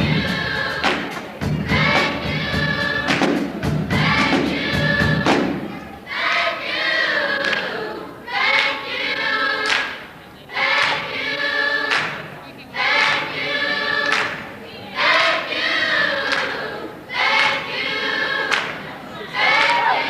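A choir singing in a gospel style, its voices holding and bending long notes. Regular low thumps keep time for the first five seconds or so, then stop and leave the voices alone.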